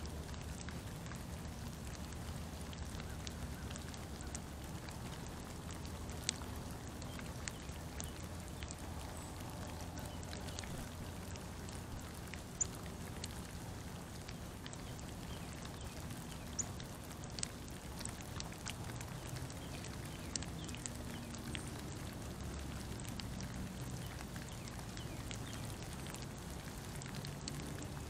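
Light rain or dripping water: a steady hiss with scattered single ticks of drops landing, over a low rumble.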